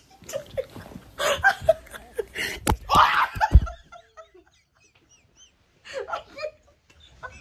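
Women laughing and squealing while play-fighting, with two sharp thumps about two and a half and three and a half seconds in as a blow lands. Then a hush with faint stifled giggles, and a short burst of laughter near the end.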